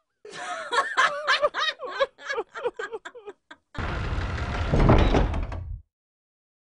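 A person laughing in quick, rhythmic pulses for about three seconds, then about two seconds of loud, dense noise with a deep rumble that stops suddenly.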